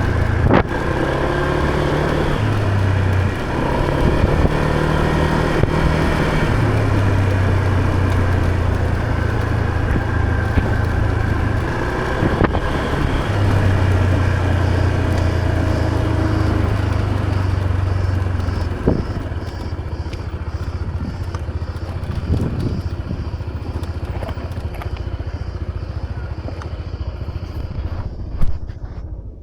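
Scooter engine running under way, its note rising and falling with the throttle, over wind and road noise with a few sharp knocks. It gets quieter about two-thirds of the way through and cuts off abruptly just before the end.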